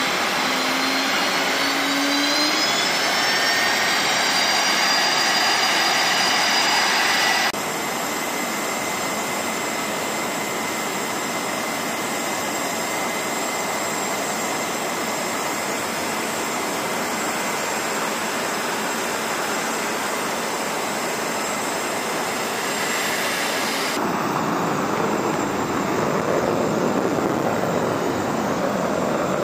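Fighter jet engines running on the flight line: a steady jet roar with a high turbine whine that rises in pitch over the first few seconds. The sound changes abruptly about a quarter of the way in and again near the end, with a lower rumble in the last part.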